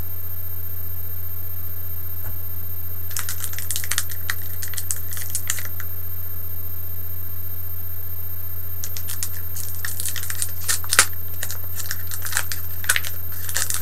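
Foil Pokémon booster pack crinkling and crackling as it is handled and opened, in two spells of sharp crackles: one a few seconds in and a longer one through the second half. A steady low hum lies underneath throughout.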